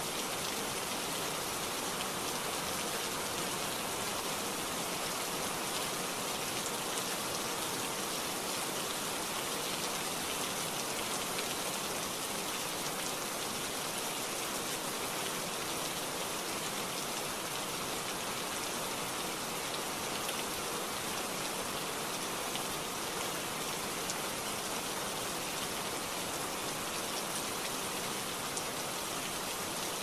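Steady heavy rain falling on forest foliage, an even hiss of drops on leaves.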